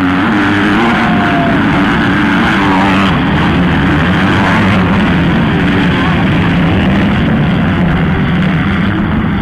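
A pack of MX2-class motocross bikes accelerating hard off the start. Several engines rev at once, with pitch rising and falling as the riders pass close by.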